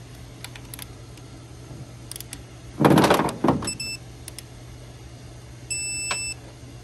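Digital click-type torque wrench being handled and set on the pump head bolts: scattered ratchet clicks, a loud clattering handling noise about three seconds in, two short electronic beeps, then a steady electronic beep lasting about half a second near the end, the wrench's alert that the set torque of 90 inch-pounds has been reached.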